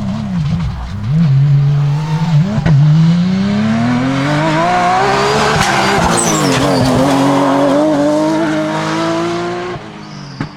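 Porsche 911 GT3 Cup rally car's flat-six engine at full race pace: the revs wobble up and down in the first second or so, then climb steadily, drop sharply at a gear change about six seconds in, and climb again. Near the end the revs fall and the sound gets quieter as the driver lifts off.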